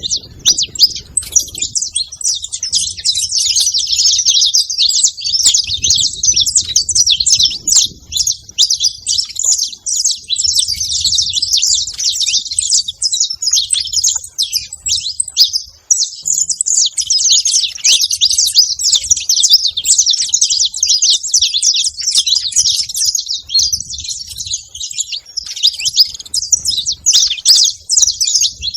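Saffron finches chirping and calling at a feeding spot: a dense, unbroken chatter of many overlapping high chirps, with a brief lull about halfway through.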